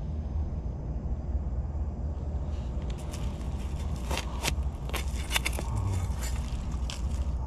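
A machete blade digging and scraping into dry soil and crackling dry leaf litter to work a young mushroom out of the ground, in short sharp strokes from about three seconds in, over a steady low rumble.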